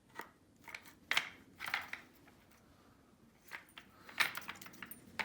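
Office chair parts being handled and fitted together: a scatter of short knocks, clicks and scraping sounds, the loudest about a second in.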